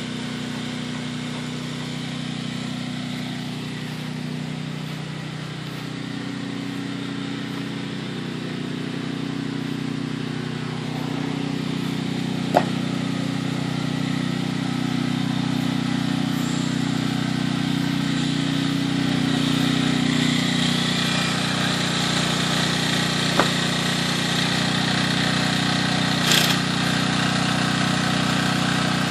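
An engine running steadily at idle, gradually getting louder. A few short, sharp knocks come through it.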